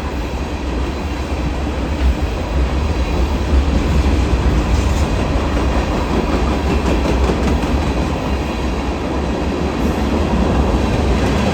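Kansas & Oklahoma Railroad freight train rolling past: a steady, loud rumble of wheels on the rails.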